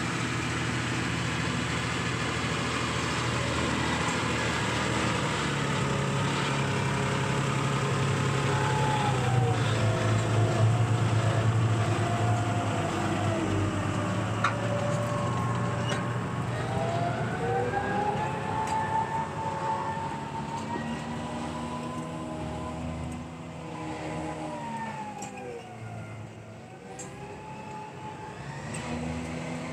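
John Deere tractor engine running steadily under field work, its pitch sinking and climbing back twice, once midway and once near the end.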